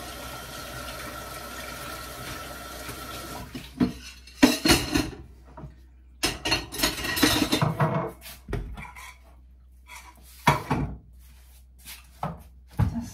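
A kitchen tap runs steadily for about three and a half seconds and then stops. After that come irregular clatters and knocks of dishes and cutlery being washed up and handled.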